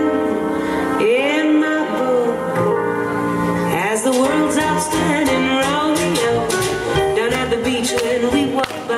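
Recorded song with a singer and band playing for the dancers; a steady drum beat comes in about four seconds in.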